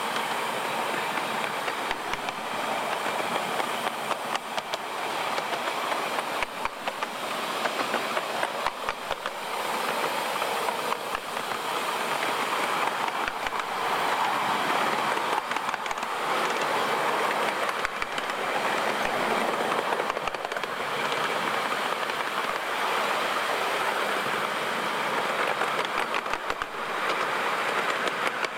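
Miniature railway train running along the track, heard from a riding car close behind the locomotive: a continuous running rumble and rattle with sharp wheel clicks over the rail joints every second or two.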